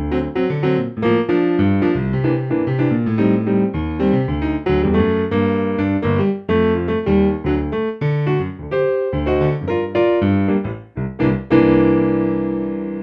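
Kurzweil PC4 stage keyboard playing a piano-type sound: a busy passage of quick notes and chords over a bass line, ending on a chord struck near the end and left to ring and fade.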